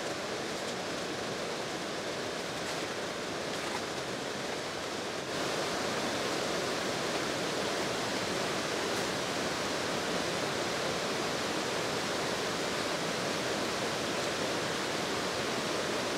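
Steady rushing outdoor background noise, like water or wind, that gets louder about five seconds in and then stays even, with a few faint clicks near the start.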